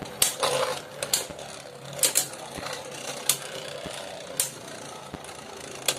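Two Beyblade Burst spinning tops, Legend Spryzen and Drain Fafnir, whirring in a plastic stadium, with a sharp clack about once a second as they collide.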